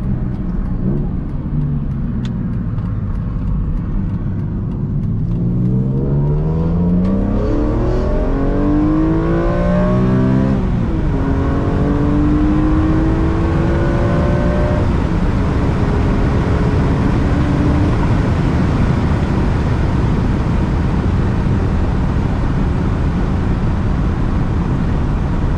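BMW E46 M3's S54 straight-six, fitted with an Eventuri intake and a Status Gruppe muffler, heard from inside the cabin under hard acceleration. The revs climb steeply, drop at an upshift about ten seconds in, climb again and drop at another shift about fifteen seconds in. It then settles into steady cruising under tyre and road noise.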